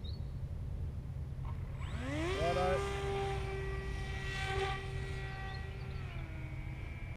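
Electric motor and APC 8x4 propeller of a Hobbyking Cloudsurfer RC plane spinning up at hand launch: a whine that rises sharply in pitch about two seconds in, holds steady, then drops in pitch near the end. Wind rumble on the microphone throughout.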